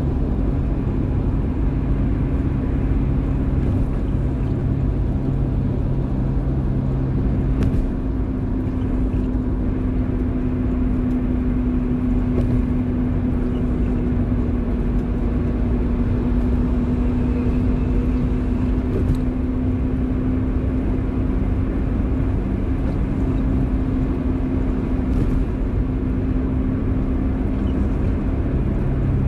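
Car driving in the rain: steady engine and road noise with a low, even hum. A lower tone in the hum drops out about eight seconds in.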